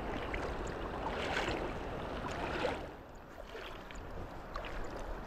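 Steady rushing water with a low rumble of wind on the microphone, easing briefly about three seconds in.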